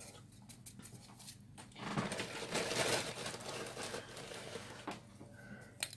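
A clear plastic bath bomb mould handled in gloved hands: small plastic clicks and taps, with a louder rustle about two seconds in as the glitter-dusted mould is tipped and turned, and a sharp click near the end.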